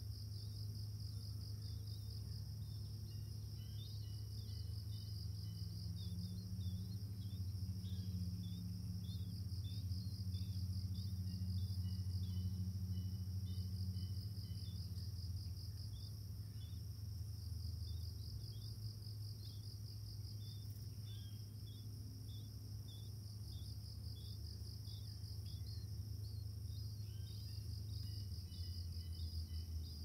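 Tropical forest insects, crickets and cicadas, chirring in a steady high pulsing drone, with scattered short high chirps over a steady low hum.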